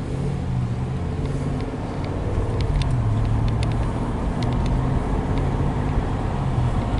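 Car engine and road noise heard from inside the cabin as the car drives off and gathers speed, growing slowly louder, with a few light clicks in the middle.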